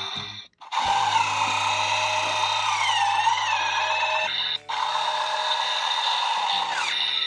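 Small electric motor and gears of a remote-control toy CAT wheel loader whirring as it drives, cutting out briefly twice, with background music.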